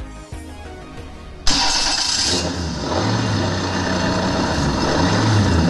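Duke five-cylinder, four-stroke axial engine starting with a sudden loud burst about a second and a half in, then running steadily, its low note swelling and easing.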